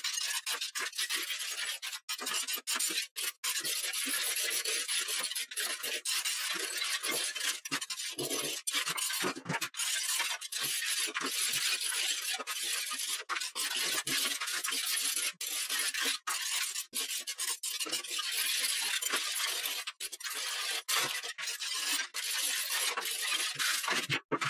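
Hand scraper rasping against a wall as it scrapes off old tile adhesive, a continuous run of scraping strokes broken by many short pauses.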